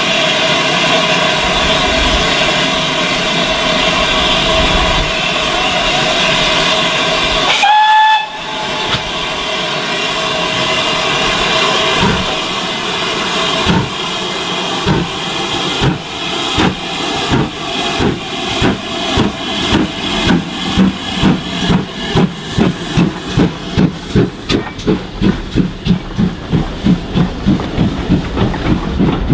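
A GWR tank steam locomotive's whistle sounds one long steady note over hissing steam, with a short second toot about eight seconds in. The engine then starts its train, and its exhaust beats begin slowly about twelve seconds in and quicken steadily as the coaches roll past.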